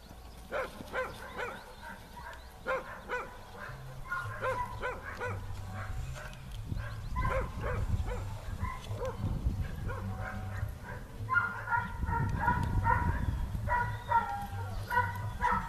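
A dog barking and yipping over and over in short high calls, coming faster and closer together in the last few seconds, over a low rumble.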